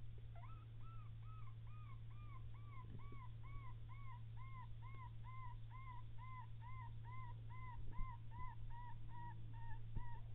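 An animal calling a long, even series of short whistled notes, about two and a half a second, starting about half a second in and slowly dropping in pitch, over a steady low hum.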